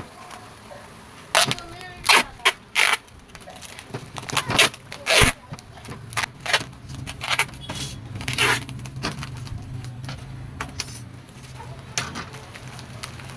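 Clear packing tape being pulled off its roll in short, sharp rips and wound around a bubble-wrapped motorcycle rear shock absorber, with the plastic wrap crinkling. The rips come about a dozen times, most of them in the first nine seconds, over a faint low hum.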